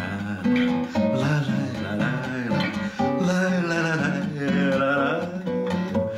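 A man singing a Russian bard song to his own strummed classical guitar.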